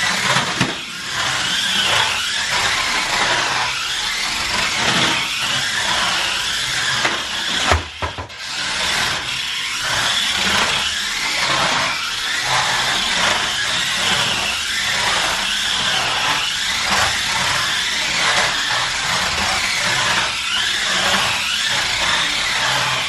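Small electric motors of a toy RC drift car whirring as it drives and spins, the whine swelling and easing over and over with the throttle, with a brief pause about eight seconds in.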